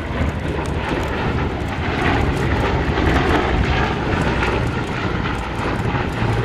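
Bristol Blenheim's two radial engines droning steadily as it flies past, getting a little louder about two seconds in.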